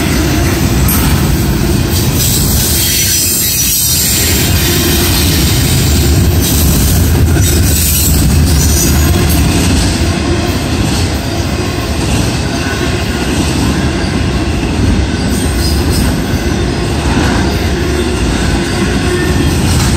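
Norfolk Southern intermodal freight train's double-stack container well cars and trailer flatcars rolling past, a loud, steady noise of steel wheels running on the rails.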